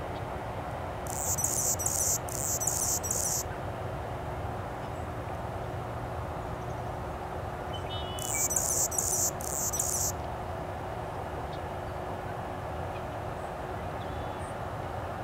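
Male Anna's hummingbird singing its scratchy, buzzy song from a perch: two bouts of high, rapidly pulsed phrases, the first about a second in and the second about eight seconds in, each made of three short bursts. A steady low hum runs underneath.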